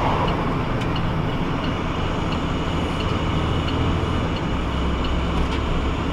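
Engine and tyre noise from inside a vehicle driving at low town speed. The low engine hum shifts in pitch a little over four seconds in.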